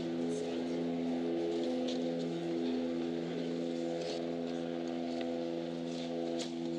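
Tennis ball struck by rackets in a rally, a sharp pock roughly every two seconds, over a steady electrical-sounding hum.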